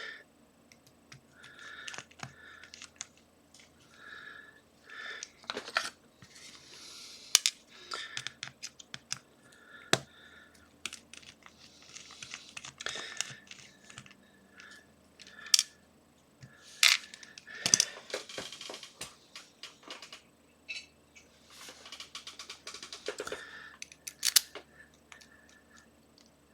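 Small screwdriver working the screws of a padlock body: scattered sharp metal clicks and taps, with short scraping bursts every few seconds.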